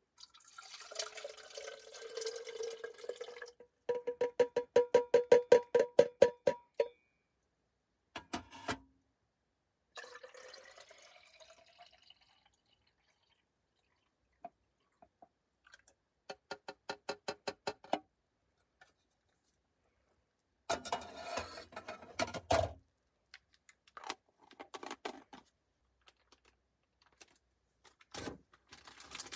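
Liquid being poured, among a string of short clicks and clatter from handling small cooking or coffee gear.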